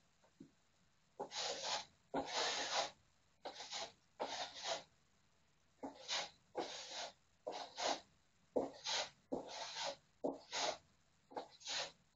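About fifteen short rasping strokes of a hand tool rubbing over a plastered wall, each under a second long, coming in uneven runs with short pauses between them.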